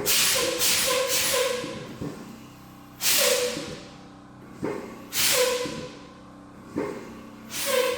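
Compressed air hissing out of a truck's air brake in repeated bursts about every two seconds, each with a whistling tone: air escaping at a brake chamber, which the mechanic takes for a bad brake chamber.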